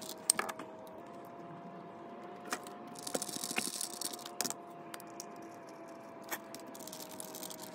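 Small metal clicks and taps of a screwdriver and parts as screws are driven into an Autolite 2100 carburetor during reassembly, a handful of separate clicks spaced irregularly over a faint steady hum.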